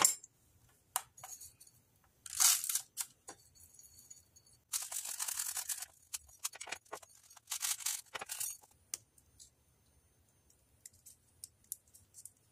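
Handling noises as sequins are filled into a plastic syringe through a rolled paper funnel: paper rustling and small sequins rattling, in several short bursts with pauses, the longest about five seconds in, then a few faint clicks near the end.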